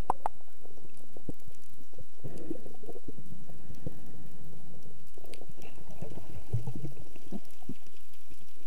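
Muffled underwater noise: irregular bubbling and gurgling of moving water with scattered small clicks.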